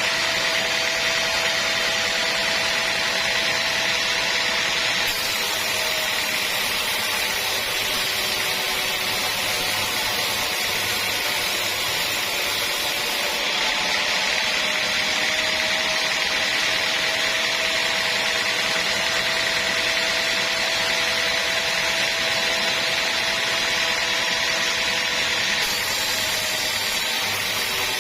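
Sawmill saw cutting steadily through a teak log: a continuous hissing cut with a faint steady hum, the hiss brightening and dulling abruptly a few times.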